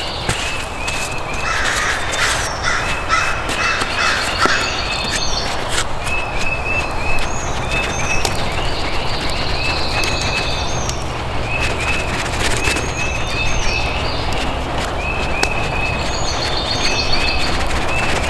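Woodland dawn chorus: many birds repeating short down-slurred chirps, with crows cawing. A run of about eight harsh caws comes a second or two in.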